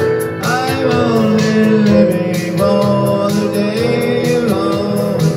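A man singing, holding one long note through the middle, with an electronic keyboard accompaniment that carries a steady beat.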